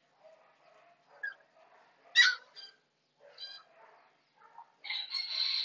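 Husky puppy yelping and howling: a short sharp yelp about two seconds in, a few small yips, then a longer, louder high-pitched howl starting near the end.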